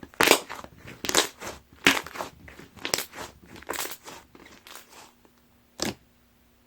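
Chocolate pudding slime being squished and pressed by hand, a string of crackly, popping squishes about once a second, with a last sharp one near the end.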